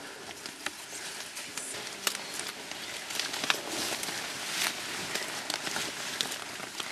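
Leafy undergrowth rustling and crackling, stems snapping, as a young mountain gorilla moves through the plants, with one sharper snap about halfway.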